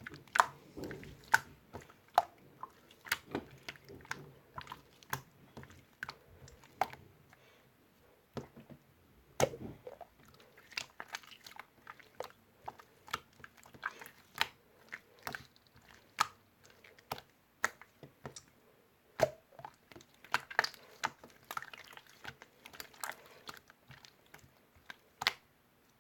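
Marbled slime being squeezed and poked by hand, giving irregular sharp sticky clicks and pops, about one or two a second and sometimes in quick runs.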